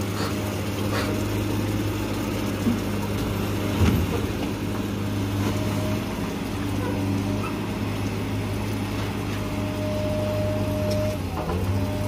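Diesel engine of an excavator working on a floating pontoon, running with a steady low drone while its arm churns the water. There is one sharp thump about four seconds in, and a thin higher whine for about a second near the end.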